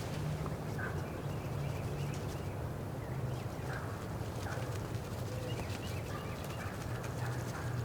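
Wind buffeting the microphone and the ground blind in a steady low rumble with small ticks and rustles, while songbirds chirp faintly a few times.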